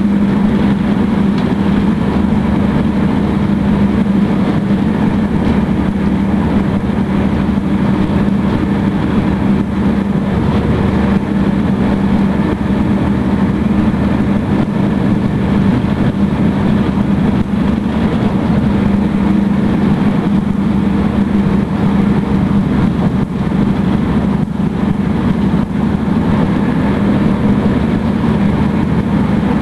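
Alstom Juniper electric multiple unit running at speed, heard from inside the carriage: a steady hum with a strong low drone over even running noise.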